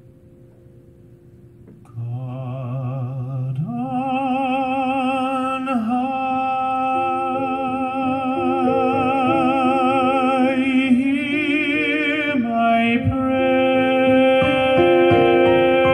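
A male tenor sings long held notes with a wide vibrato over soft piano accompaniment. The voice comes in loud about two seconds in, after a few quiet piano notes.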